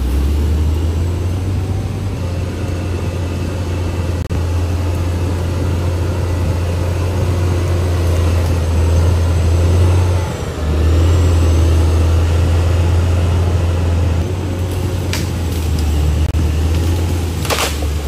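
CAT D6R XL bulldozer's diesel engine running with a steady low drone that dips briefly about ten seconds in. A few sharp knocks come near the end.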